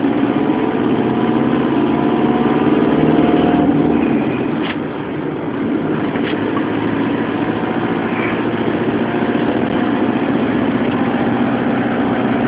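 Motorhome's engine and road noise heard from inside the cab while cruising on the motorway: a steady drone with engine tones under it, easing slightly about five seconds in.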